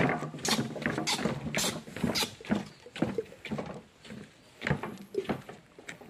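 Footsteps knocking on the wooden planks of a boardwalk, an uneven run of thuds about two or three a second that fade away near the end.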